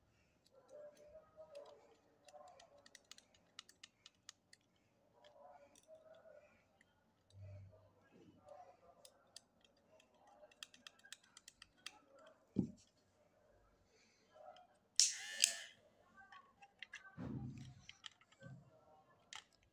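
Faint clicks, scrapes and a few knocks from a small screwdriver turning screws and hands handling the plastic housing of a Daling cordless hair clipper as it is put back together, with a louder brief scrape about fifteen seconds in.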